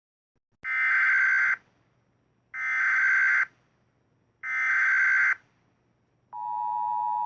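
Emergency Alert System tone file playing: three bursts of the SAME header's screeching digital data tones, each about a second long, then the steady two-tone EAS attention signal starting near the end.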